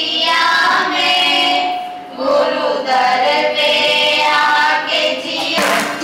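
A group of women and girls singing a song together into microphones, in long held phrases with a short break about two seconds in. Near the end it cuts to other music with a beat.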